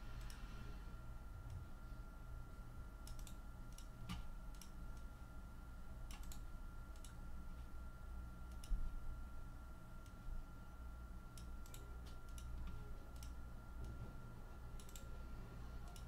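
Sparse, irregular clicks of a computer mouse and keyboard while lists are copied and pasted into a spreadsheet, over a faint steady hum.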